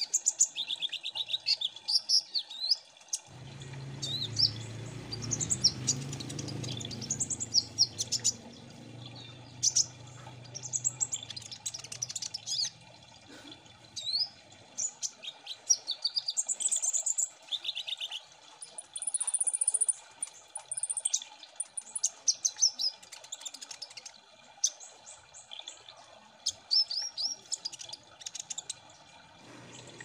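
Kolibri ninja sunbirds singing: quick, high, sharp chirps and trilled phrases in dense, overlapping runs. A low rumble sits under the song for the first half.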